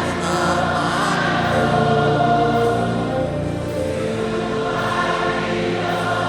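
Congregation singing a slow worship song together as a choir, over a steady band accompaniment with held chords.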